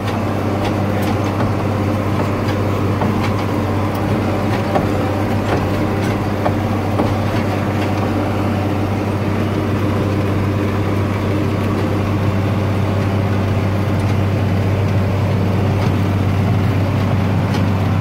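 John Deere tractor's diesel engine running steadily under load, heard from inside the cab as a constant low drone.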